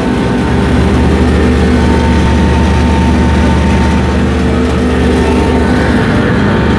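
Electric atta chakki flour mill and its cyclone air system running. It makes a loud, even machine drone with several steady tones held throughout.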